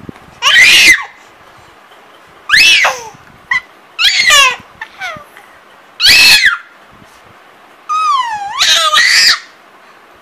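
A baby squealing: five loud, high-pitched shrieks a second or two apart, each gliding in pitch, the last and longest near the end.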